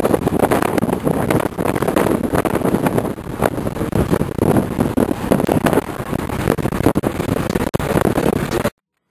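Loud rumbling road and wind noise inside a minivan cabin at highway speed, with wind buffeting the microphone. It cuts off suddenly just before the end.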